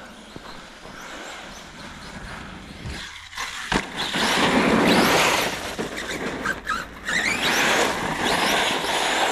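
Electric RC monster truck (Arrma Kraton) driven through wet snow: the brushless motor whines and the tyres churn snow in bursts of throttle. It is loudest about four to six seconds in, with short rising motor whines after that.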